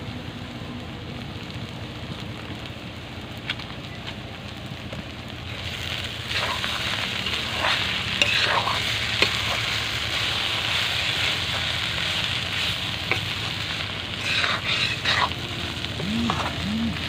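Cabbage and potato curry sizzling in a pan near the end of its cooking. From about six seconds in it gets louder, with a spoon stirring and scraping through it in repeated strokes.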